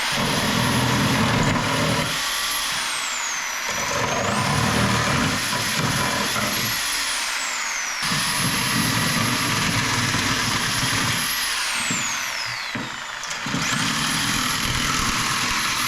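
Handheld power tool working on scrap metal in four bursts of a few seconds each. The motor whine rises and falls with the trigger, and there is a heavy rattle each time the tool bears on the work.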